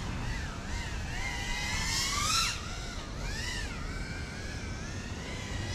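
FPV quadcopter's brushless motors and propellers whining, the pitch rising and falling with throttle. The whine climbs to its loudest about two seconds in, then drops sharply, with another rise and fall a second later.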